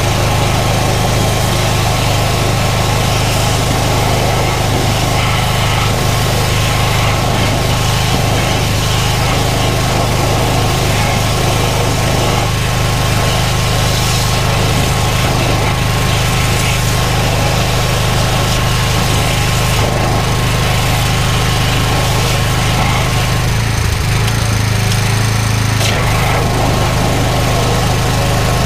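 Drain jetting machine's engine running steadily while its high-pressure hose jets the drain, with a constant hiss of water over the engine hum. The engine note changes briefly about 24 seconds in, then settles again.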